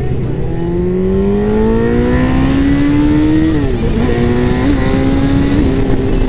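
Yamaha R1's 1000cc inline-four engine under way, revs climbing steadily for about three seconds, then dropping at an upshift and running on at steady revs with a couple of small blips. Constant wind noise underneath.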